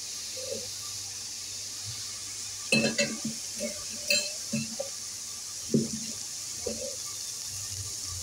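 Sliced onions sizzling in oil in an aluminium pressure cooker, a steady hiss, with a few sharp metal clinks, the loudest about three seconds in and again near six seconds.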